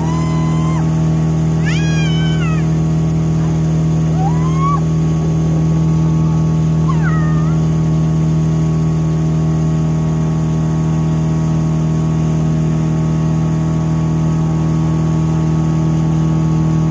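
Tourist boat's motor running steadily with a constant low drone. Several brief high calls that glide up and down sound over it in the first eight seconds.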